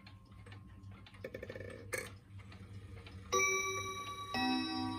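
Wall clock chiming: two long ringing chime notes, the first about three seconds in and the next a second later, over faint ticking, with a brief rattle and click before them.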